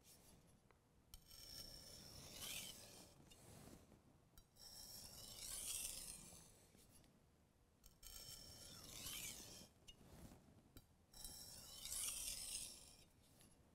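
A steel chef's knife blade is stroked back and forth in light passes across the fine-grit side of a water-wetted Work Sharp whetstone, making a soft, hissy scraping. The strokes come in bouts every few seconds with brief pauses between them. This is the light finishing and honing stage, done after a burr has been raised on the edge.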